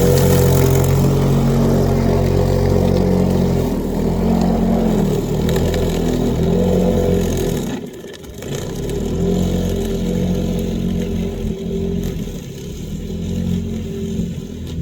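Corded electric lawn mower running, its motor hum wavering in pitch as it cuts. It drops away briefly about eight seconds in, then picks up again.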